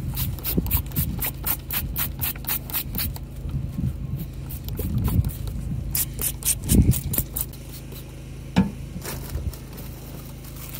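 Hand trigger spray bottle pumped rapidly, about six squirts a second for some three seconds, then a few single squirts, spraying tetracycline onto a cow's digital dermatitis (strawberry wart) lesion. A steady low hum and a couple of dull thumps lie underneath.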